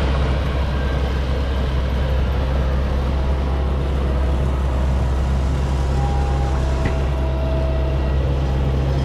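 Kubota combine harvester's diesel engine and machinery running at a steady pace, a constant low hum.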